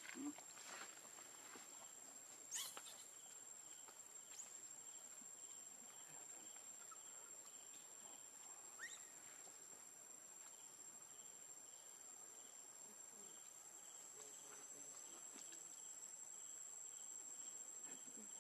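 Faint steady insect chorus: a constant high-pitched whine with a soft chirp pulsing a few times a second. A few short sharp sounds come in the first nine seconds.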